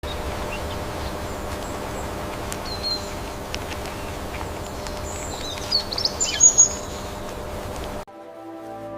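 Forest ambience with a steady hiss and birds chirping, with a cluster of louder, higher calls about six seconds in. It cuts off suddenly near the end and gives way to music with held notes.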